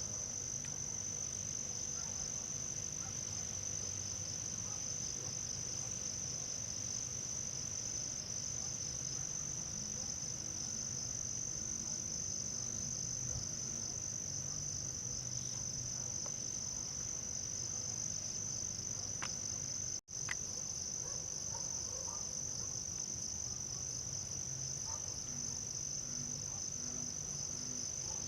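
Crickets trilling steadily in a continuous high-pitched chorus. The sound cuts out for an instant about two-thirds of the way through.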